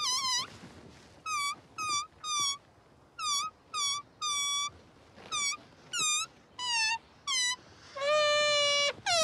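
Rubber balloon squealing as air is let out through its stretched, pinched neck: about a dozen short squeaks, each dipping and then rising in pitch, then one long held squeal near the end.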